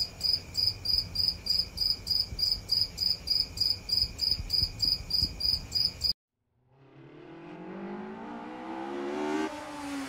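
A high, evenly repeated chirping tone, about three to four pulses a second, over a low rumble, stopping abruptly about six seconds in. Then a car engine fades in and revs up, its pitch dropping once at a gear change near the end.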